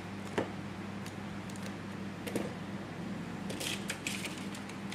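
Small clicks and light rustles from handling smartphone parts and tweezers, over a steady low hum: a sharp click about half a second in, and a short burst of crinkly ticking about three and a half seconds in.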